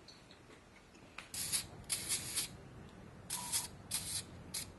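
Compressed-air blow gun hissing in about five short bursts, blowing dust and packing material out of a new Harley-Davidson Twin Cam cylinder head.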